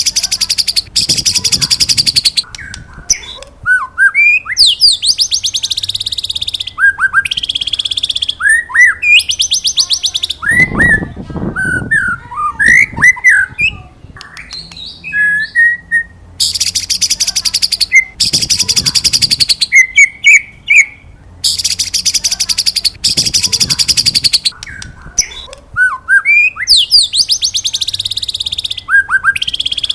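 White-rumped shama singing: short, rising whistled notes alternate with long, high, rapidly pulsed rattling trills of a second or two, the phrase repeating over and over.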